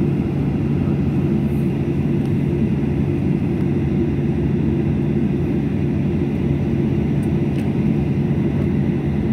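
Airliner cabin noise while taxiing: a steady low drone from the engines, heard from inside the cabin, with one constant low hum running under it.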